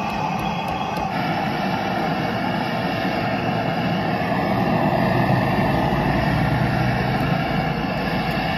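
Steady roar of a gas burner running at full flame under a pot of milk tea, with a low rumble swelling for a few seconds past the middle.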